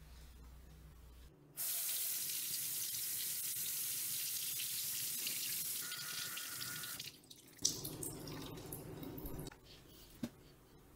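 Kitchen faucet running into the sink, the stream splashing on a dishcloth rinsed under it; the water starts about a second and a half in and stops abruptly around seven seconds. A sharp click follows, then quieter handling noise for about two seconds.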